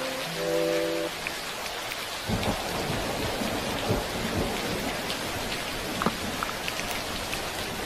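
Steady rain falling, with a long low rumble of thunder that comes in about two seconds in and keeps rolling.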